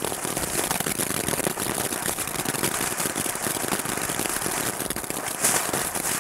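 Small ground fountain firework burning: a steady spraying hiss thick with fast crackling.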